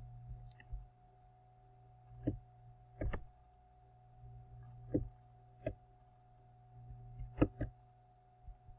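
About ten sharp clicks and taps, spread irregularly and some in quick pairs, over a faint steady electrical hum.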